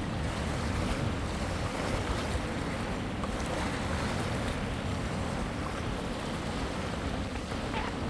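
Ocean surf breaking and washing up the beach, a steady rushing noise, with wind buffeting the microphone.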